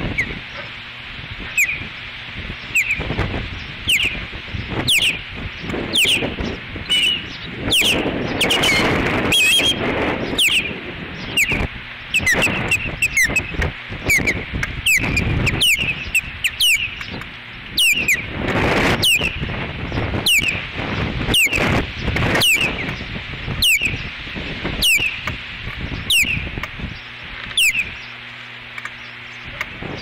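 Ospreys giving their alert call over and over: short, sharp whistles falling in pitch, about one a second. Wind buffets the microphone throughout.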